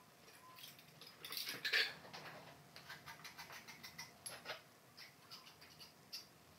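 Small ceramic tile pieces being handled: a louder scrape just over a second in, then a run of light clicking ticks, about four a second.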